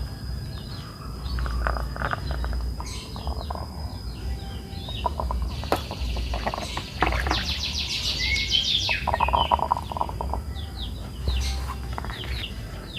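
Birds chirping and calling, with a fast rattling trill about seven seconds in and scattered short clicks. A faint steady high tone runs underneath.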